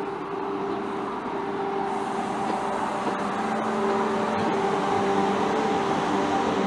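Renfe Class 120 electric multiple unit pulling in alongside the platform: a steady mechanical whine with a few faint clicks from the wheels, growing louder as the train comes past.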